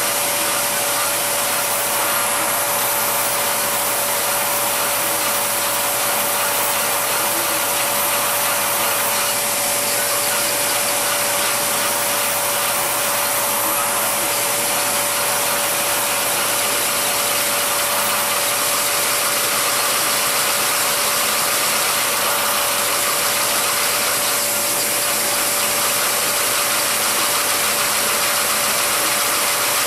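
Lego model steam engine with Walschaerts valve gear, driven by vacuum suction, running steadily: a fast clatter of its plastic parts over the steady hiss and whine of the vacuum.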